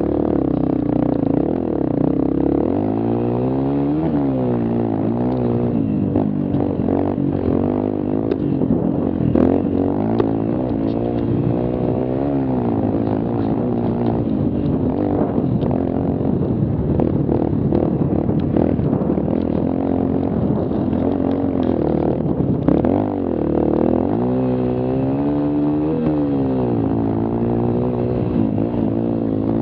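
Mini quad's small engine revving up and easing off again and again as it is ridden hard over a rough dirt trail, its pitch climbing and dropping, with knocks and rattles from the machine over the bumps.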